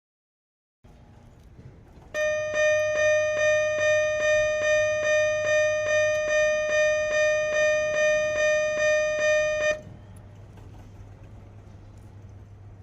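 Japanese miniature railway crossing alarm sounding its 'kan-kan' bell: a ringing tone struck about two and a half times a second, starting about two seconds in and cutting off abruptly about eight seconds later.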